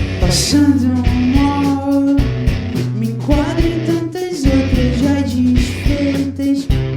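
Psychedelic rock band playing live: guitars, bass and drums with sung vocals.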